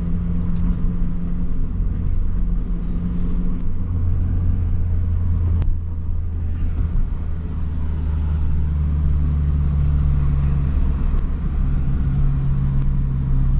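Honda Fit's four-cylinder engine running under way, with road noise from inside the cabin. The engine note shifts pitch a few times, dropping lower about six seconds in and then climbing. There is a brief sharp click just before that.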